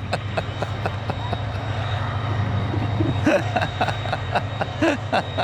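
A steady low motor hum, like a vehicle engine running nearby, with scattered clicks and brief faint voices.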